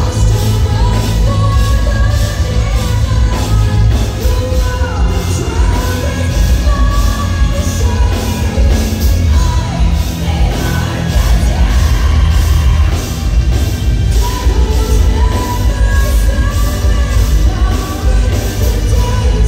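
Symphonic metal band playing live, a woman singing lead over drums, bass and electric guitars, with a heavy booming low end, heard from the crowd in a concert hall.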